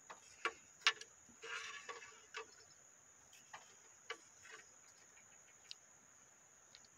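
Scattered soft clicks and taps of a freshly caught small fish being handled and unhooked, with a short rustling patch about one and a half seconds in. A steady high-pitched hum runs underneath.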